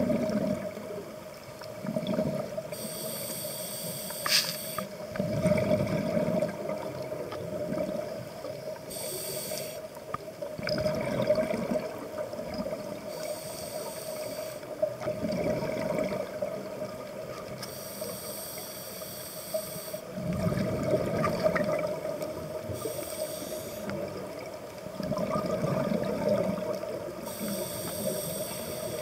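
Scuba diver breathing through a regulator underwater: a hissing inhale about every five seconds, each followed by a gurgling burst of exhaled bubbles, with a steady hum underneath.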